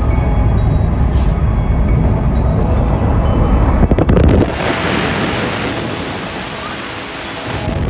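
Car driving along a road, heard from inside: a steady low rumble of road and wind noise. About four seconds in it gives way to a hissing rush of wind on the microphone that slowly fades.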